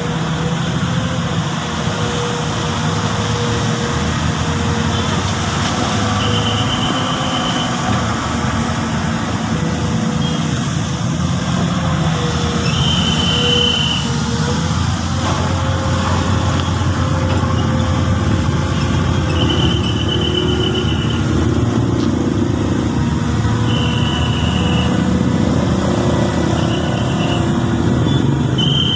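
Komatsu PC200 hydraulic excavator working, its diesel engine running steadily under load. Short high tones, each about a second long, come again every few seconds.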